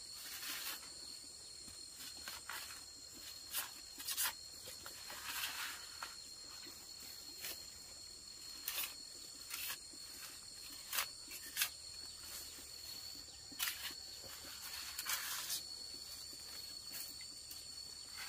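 Steady high-pitched insect drone, with irregular short rustling and scraping sounds every second or two.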